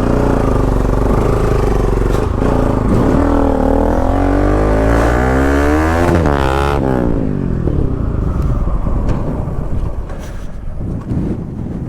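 Motorcycle engine being ridden hard, its pitch climbing for several seconds to a peak about six seconds in, then falling away as it eases off, with a second engine note sweeping across it around the peak.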